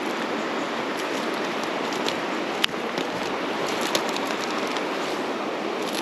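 Mountain stream rushing steadily, with a few sharp clicks and ticks on top, the loudest about two and a half seconds in.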